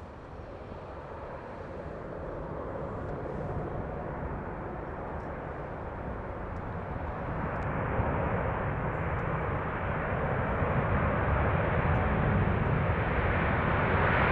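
Jet airliner's engines: a steady rushing noise that grows louder throughout as the aircraft approaches.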